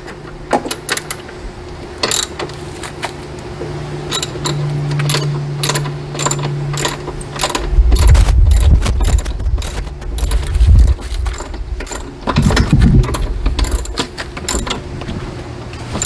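Socket ratchet clicking in uneven runs as it turns a long motor-mount screw, with tool handling clatter and low rumbling knocks about halfway through.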